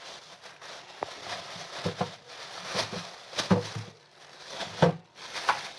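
Thin plastic carrier bag rustling and crinkling as hands pull it open, with several sharper crackles.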